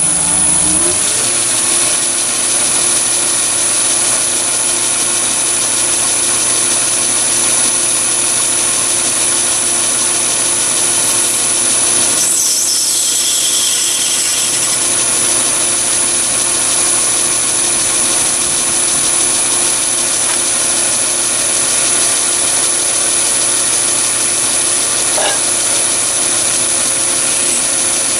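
Chinese mini lathe motor and spindle spinning up over about a second, then running steadily at about 645 rpm with a constant high whine, while the tool faces off the end of a brass part.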